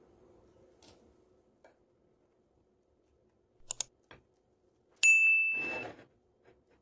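Subscribe-button sound effect: two quick mouse clicks, then about a second later a bright bell ding that rings for just under a second.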